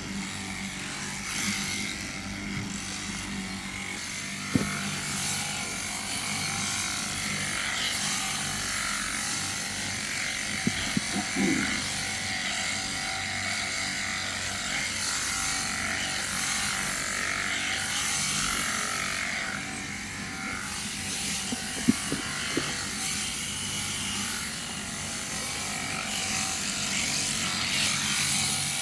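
Electric sheep-shearing handpiece running steadily as it cuts through a sheep's fleece, with a few short knocks.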